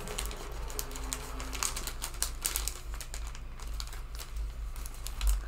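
Irregular light clicks and rustling from small die-cut paper pieces and their packaging being handled and sorted through, over a steady low hum.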